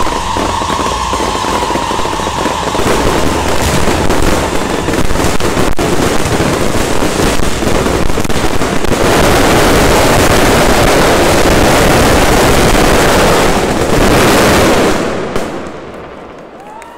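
Fireworks finale: dense crackling and popping from many rising comets and bursting shells at once, building to a continuous loud barrage about nine seconds in. The barrage stops abruptly about fifteen seconds in and dies away.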